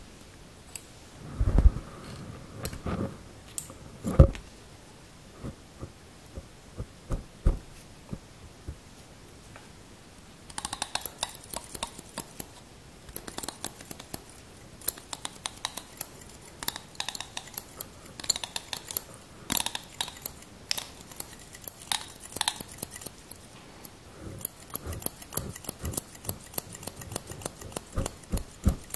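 Barber's scissors snipping right at a furry microphone windscreen. The first few seconds hold soft low thumps and rubbing of the fur. From about ten seconds in come fast runs of crisp snips.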